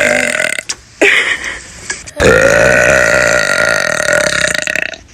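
A person burping loudly on purpose, three times: one drawn-out burp ending about half a second in, a short one about a second in, and a long one of nearly three seconds from about two seconds in.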